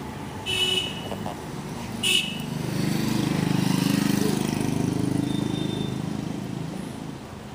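A motor vehicle passes on a road: two short, high horn toots about a second and a half apart, then its engine swells over a few seconds and fades away.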